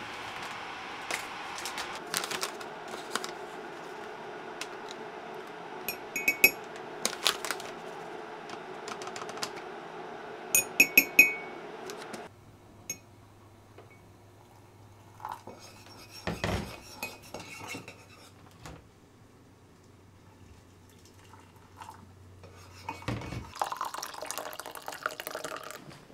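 Making a mug of cocoa: a metal spoon clinks and rings against a ceramic mug in two quick clusters. Scattered handling clicks and clatter follow over a low steady hum.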